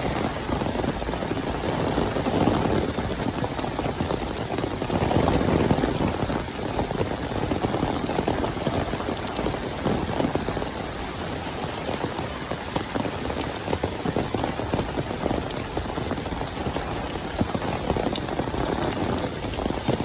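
Heavy monsoon rain pouring steadily, a dense hiss with many close drop patters, swelling in intensity a couple of times.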